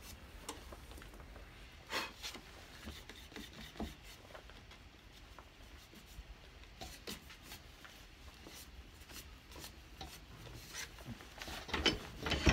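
Hands handling and turning a cherry-wood plate on a stopped wood lathe: scattered light taps and rubbing of wood, over a low steady hum, with a few louder knocks near the end.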